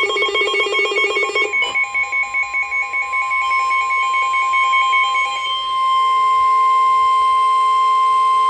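Emergency alert signal ahead of a severe thunderstorm warning: a rapidly pulsing, warbling alert tone for about the first second and a half, then a single steady tone, the weather-radio warning alarm tone, held for about seven seconds and cut off sharply near the end.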